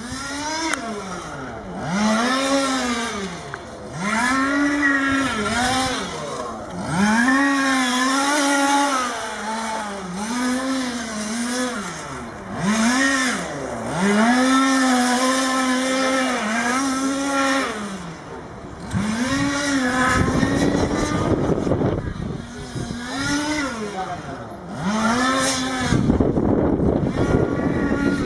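Small two-stroke petrol engine of a 1/5-scale RC touring car, revved up and let off again and again as it is driven around the track, a whine that rises and falls about a dozen times. About 20 and 26 seconds in the sound turns rougher and noisier.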